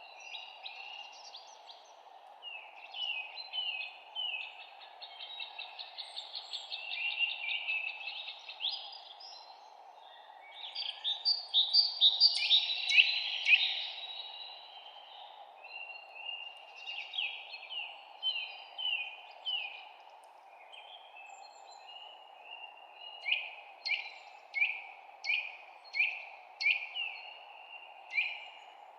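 Songbirds chirping and trilling in repeated short, down-slurred notes over a steady low hiss. The loudest burst comes about twelve seconds in, and near the end there is an evenly spaced series of single chirps.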